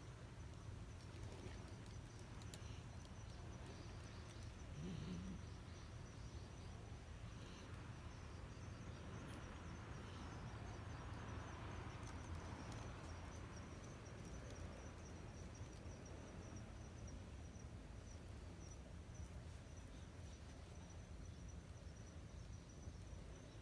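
Quiet outdoor ambience: a steady low rumble with a faint, high insect trill running through it, and one short soft low sound about five seconds in.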